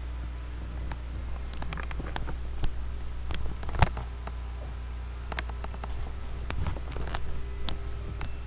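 Scattered knocks and clatter of an aluminium pot and kitchenware being handled at a stainless steel sink, the loudest knock about four seconds in, over a steady low hum.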